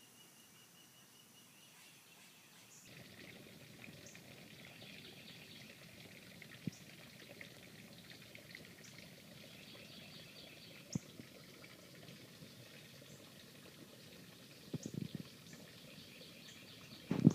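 Outdoor garden ambience: insects chirring and birds calling in a steady background, with a couple of sharp clicks and a loud knock near the end.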